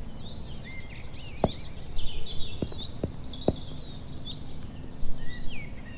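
Small songbirds chirping and twittering, several at once, over a steady outdoor background hum, with four short sharp taps between about one and a half and three and a half seconds in.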